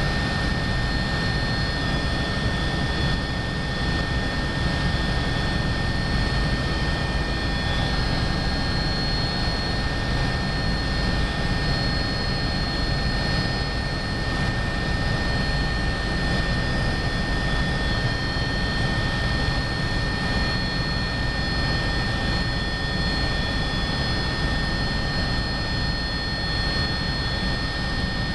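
Cabin noise inside an Agusta A109BA helicopter in flight: its twin turboshaft engines and rotor make a steady low rumble, with a constant high whine on top.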